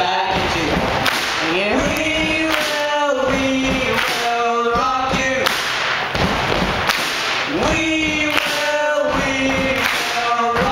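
Male voices singing a melody into microphones over beatboxed percussion. Sharp, snare-like mouth clicks cut in every second or so.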